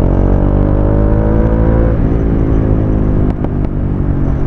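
Bajaj Dominar 400's single-cylinder engine running while riding. Its note rises slowly over the first two seconds, then holds steady, with a couple of short clicks about three seconds in.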